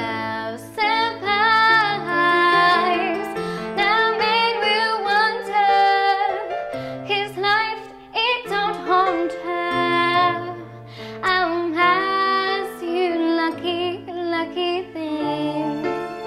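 A young woman singing a slow, tender ballad solo over an instrumental backing track, her long held notes wavering slightly.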